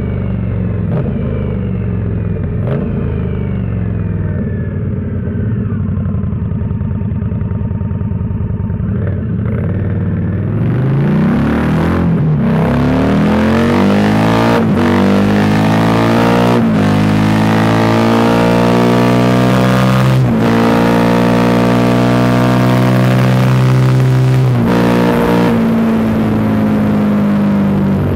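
Victory Octane's V-twin through Trask 2-into-1 exhaust pipes. It runs steadily for about ten seconds, then accelerates hard through several gear changes, each one a short dip before the pitch climbs again, with wind rush rising alongside. The engine pitch levels off near the end as the bike reaches its top speed, the run taken for the Octane hitting its speed limiter.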